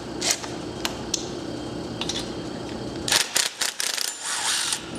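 Metallic clicks of a cordless drill/driver and bit being fitted to a bolt on the motorcycle frame, with a quick cluster of clicks about three seconds in and a short rasping rattle just after.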